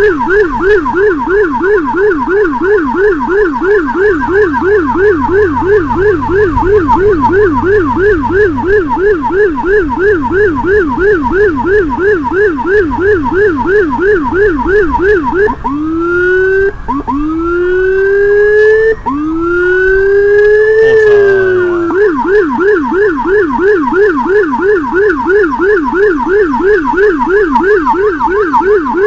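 Whelen electronic siren on an ambulance-escort motorcycle sounding a fast yelp, about three sweeps a second. A little past halfway it switches to three slower rising wails, the last rising and then falling, before the fast yelp resumes.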